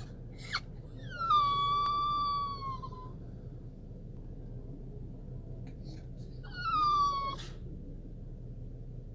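Toy poodle whining twice: two long, high cries that slide down in pitch and then hold, the first about two seconds long, the second shorter near the end. It is separation whining for its owner, who has stepped out of the car.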